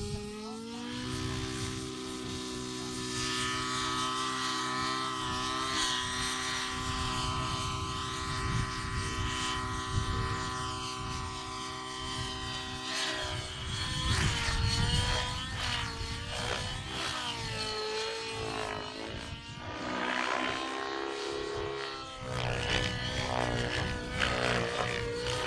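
Nitro engine and rotor of a radio-controlled 3D helicopter, rising in pitch as it lifts off, then running steadily. From about halfway on its pitch rises and falls again and again as it flies aerobatic manoeuvres.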